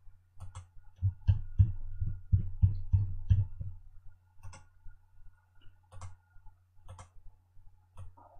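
Computer mouse and keyboard clicking: a quick run of about eight clicks in a little over two seconds, then single clicks about once a second, over a low steady hum.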